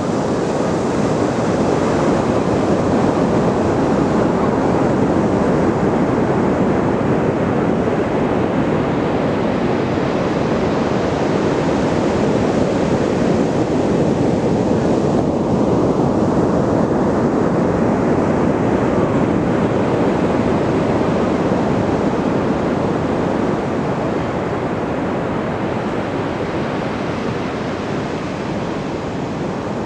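Ocean surf washing onto a beach: a continuous rush of breaking waves that eases slightly near the end.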